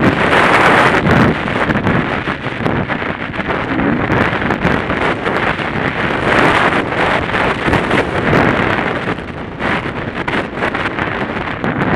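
Dirt bike engine running on the move, rising and falling in loudness several times, mixed with heavy wind buffeting on the microphone.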